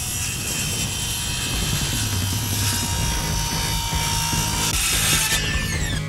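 Handheld circular saw running and cutting through a thin wooden board with a steady high whir. Near the end the blade is freed and the saw winds down with a falling whine.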